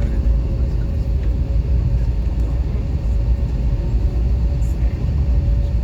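Airbus A321 running with a steady, even low rumble and a faint steady hum above it.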